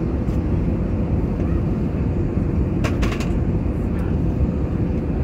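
Steady in-flight cabin noise of an Airbus A320neo: a dense low rush of engines and airflow with a faint steady hum. About three seconds in, a short crackle of paper as the laminated safety card is picked up.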